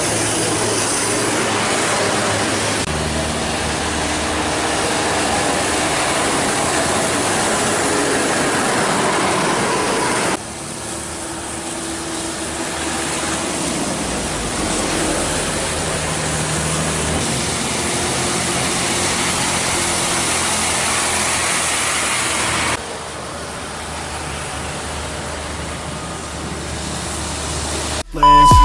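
Large intercity buses driving past on a rain-wet road: diesel engines running under a steady hiss of tyres on wet asphalt. The sound changes abruptly several times as one clip cuts to the next.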